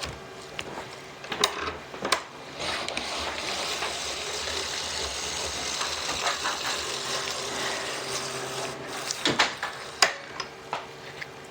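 Hand-cranked apple corer and slicer being turned: a steady mechanical grinding for about six seconds as the apple is pushed through the blades, with a few clicks and knocks before and after.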